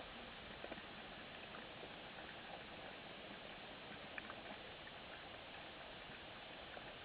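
Underwater ambience picked up by a diving camera: a steady faint hiss with scattered small clicks and crackles.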